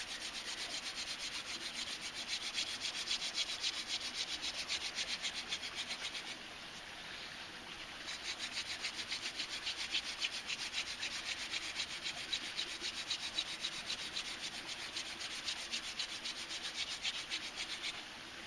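Wooden hand-drill spindle spun back and forth between the palms, grinding into a wooden hearth board in a fast, even rhythm of scraping strokes. It pauses briefly about six seconds in, when the hands go back to the top of the spindle. This is the warm-up stage of a friction fire, building dust in the notch before more pressure is put on.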